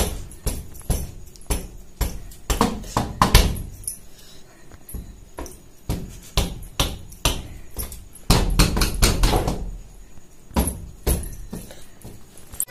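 Irregular slaps and taps of a toddler's hands clapping and patting, with a low rumble about eight seconds in.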